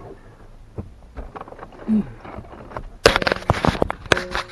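Seat belt hardware and plastic interior trim being worked loose by hand: scattered light clicks, then, about three seconds in, a dense burst of clattering and rattling lasting about a second.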